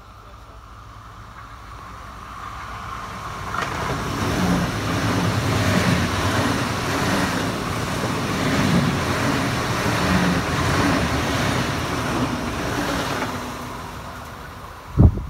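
Red S-Bahn electric multiple unit passing close by: wheel and rail noise with a low hum from its electric drive builds over a few seconds, stays loud for about ten seconds, then fades as the train runs away. Two brief low thumps near the end.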